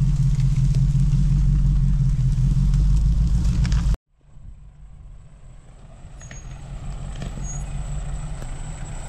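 Off-road 4x4's engine running, a loud steady low rumble that cuts off abruptly about four seconds in; then a much quieter engine sound that slowly builds.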